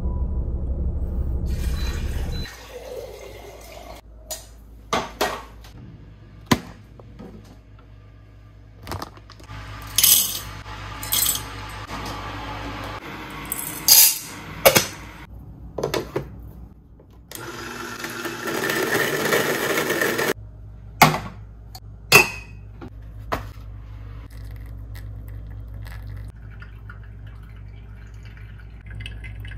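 Coffee being made by hand. Clinks and clicks of a metal canister and lids are followed by whole coffee beans rattling into an electric coffee grinder's plastic hopper about fourteen seconds in, and then the grinder running for about three seconds. Near the end, hot water is poured slowly from a kettle onto the grounds in a Kalita dripper, a faint steady trickle, after a low car-cabin rumble in the first couple of seconds.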